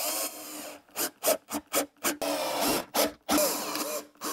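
Bosch cordless drill-driver running in a string of short spurts and a few longer runs, driving wood screws through a cyclone separator's flange.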